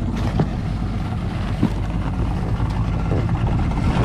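Yamaha 70 outboard motor idling with a steady low hum, with a couple of short knocks about half a second and a second and a half in.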